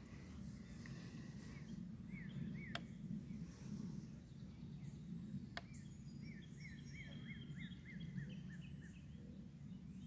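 Songbirds singing: one bird repeats quick up-and-down whistled notes, a few a couple of seconds in and a longer run of about eight later on, with fainter chirps higher up. Under it runs a steady low background rumble, and two sharp clicks stand out.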